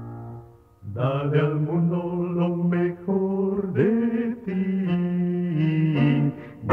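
A sustained piano chord fades away, and about a second in a vocal quartet comes in singing a Christian song in Spanish in close harmony.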